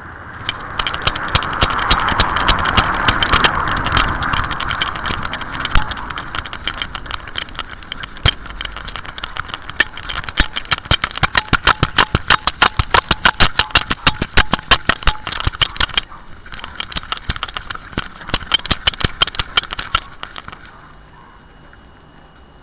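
Rattling and knocking from a camera worn by a dog as the dog moves: fast, irregular clicks, densest about ten to sixteen seconds in, with a rushing noise over the first few seconds. It eases off near the end.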